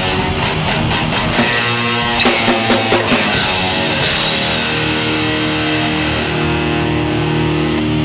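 Live rock band playing electric guitars, bass and drums, with a quick run of drum hits two to three seconds in. About four seconds in the drums stop and a held guitar chord rings out, the song's final chord.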